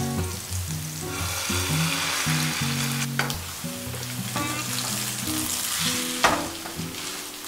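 Egg-and-milk-soaked bread pieces sizzling in melted butter in a nonstick frying pan, the sizzle swelling about a second in as the mixture lands, with a couple of sharp spatula scrapes against the pan as it is pressed into shape. Background music plays underneath.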